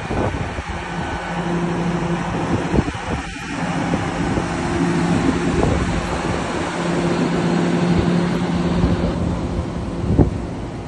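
Class 810 Aurora bi-mode train standing at the platform, running with a steady low drone, mixed with wind on the microphone. A brief knock comes about ten seconds in.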